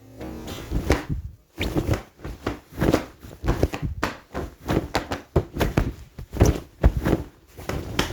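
Fast martial-arts fight foley: karate-uniform cloth snapping and swishing with punches and blocks landing, several strikes a second in an unbroken flurry.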